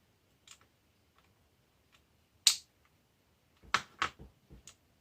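A handful of sharp plastic clicks and taps from handling a small RC truck's parts. One faint click comes about half a second in, the loudest about halfway through, and a quick cluster of five or so near the end.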